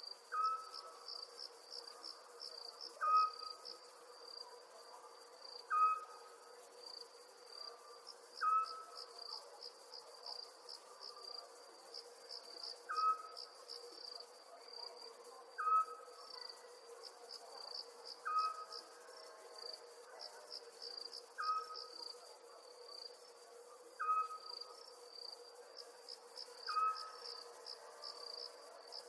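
Crickets chirping in steady pulsing trills, with a short, clear call repeating about every three seconds as the loudest sound, over a faint steady hum.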